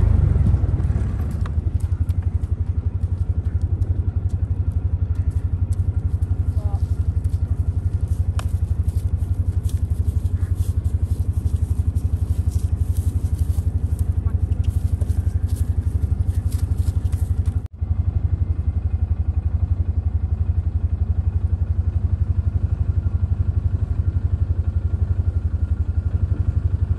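Small motor vehicle's engine running with a steady low rumble, with crackling clicks over the first two-thirds. The sound drops out for an instant about two-thirds of the way through, then the rumble carries on.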